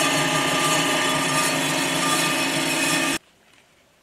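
Storm Vulcan Blockmaster 85B surfacing machine running a light finishing cut across a Willys F134 cylinder head, a steady machine drone with several steady tones. It cuts off suddenly about three seconds in.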